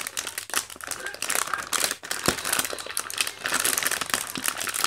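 Plastic snack packet of Regent golden sweet corn crinkling as it is handled, a dense, irregular crackle.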